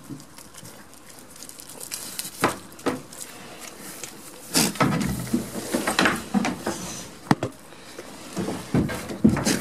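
Goats eating banana from a hand, close up: irregular sharp clicks and knocks with rustling, sparse at first and busiest in the middle.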